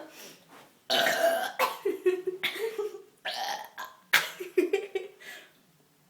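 Girls burping in a burping contest: long, loud belches starting about a second in, with a second drawn-out burp around four seconds.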